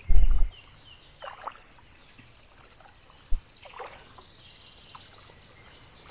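Wind buffeting the microphone for about half a second at the start, then kayak paddle strokes splashing in the water while a bird sings high, rapid trills. A single low thump comes about three seconds in.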